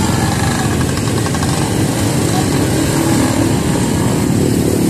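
Steady street traffic noise with motorcycle engines running.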